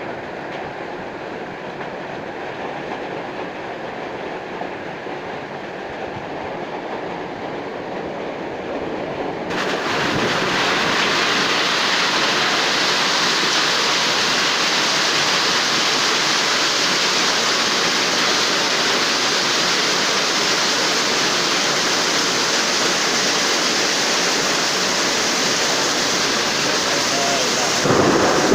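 Heavy rain pouring down in strong wind: a steady rushing noise that turns louder and fuller about ten seconds in, with a brief louder swell near the end.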